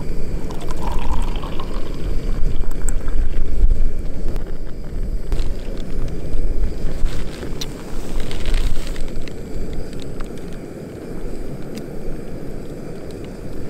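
Gusty wind buffeting the microphone, a low rumbling noise that swells and fades, with a few faint clicks and a brief hiss about eight seconds in.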